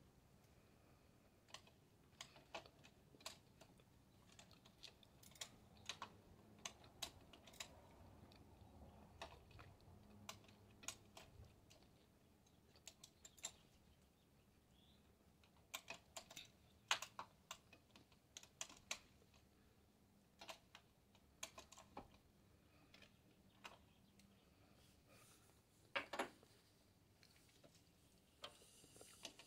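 Faint, irregular light clicks and taps of hand tools and small parts being handled, coming in spells with short gaps between; the sharpest knocks come about 17 and 26 seconds in.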